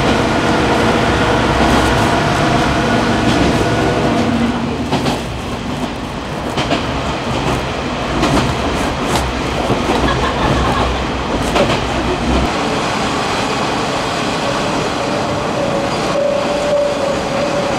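A Kominato Railway KiHa 200 diesel railcar running, heard from inside the car. The engine's steady drone fades away about four to five seconds in as it eases off, over wheel rumble and clicks from the rail joints. Near the end a steady squeal sounds as it slows for a station.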